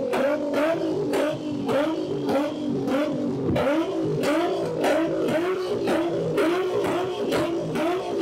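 Car engine being revved over and over in quick, even surges, about two a second, with sharp pops between them.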